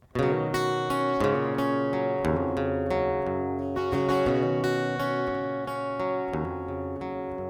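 Acoustic guitar strumming chords, starting abruptly about a quarter-second in and carrying on as a song intro.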